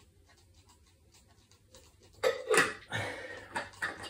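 A man gulping water from a sports bottle, the swallows faint, then a loud breathy "ahh" after the drink about two seconds in, followed by hard breathing and a few clicks of the bottle being handled and closed.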